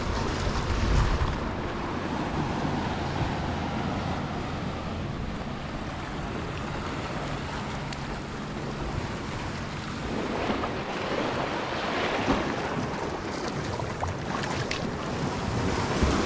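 Small sea waves washing in over a rocky shore, with wind buffeting the microphone. The wash swells louder about two-thirds of the way through.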